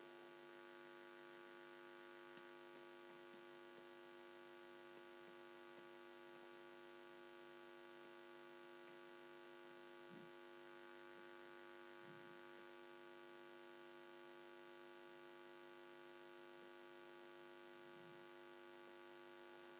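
Near silence: a faint, steady electrical mains hum.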